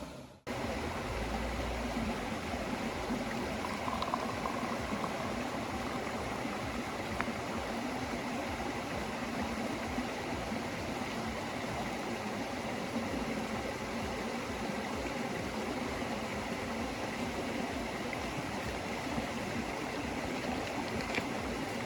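Steady sound of running, bubbling water, with a brief break just after the start.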